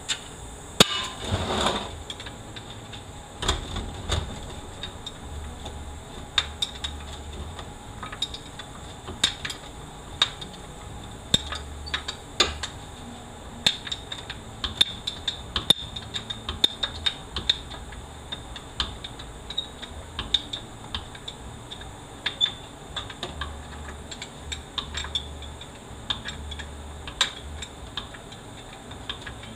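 Metal hand tools and steel transmission parts clinking and knocking during disassembly of a 4L80E automatic transmission: irregular sharp taps and clicks, with a louder scraping rattle about a second in.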